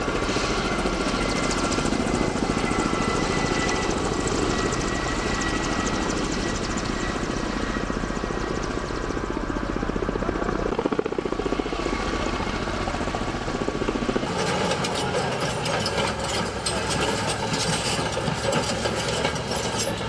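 A firefighting helicopter's rotor and engine running steadily. About fourteen seconds in, the sound changes to a bulldozer's engine running, with many knocks and rattles.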